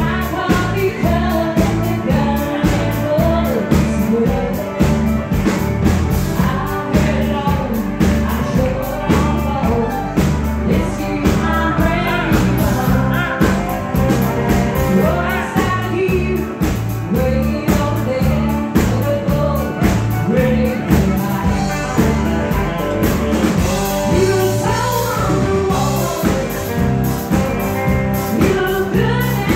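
Country song playing: singing over a band with a steady beat.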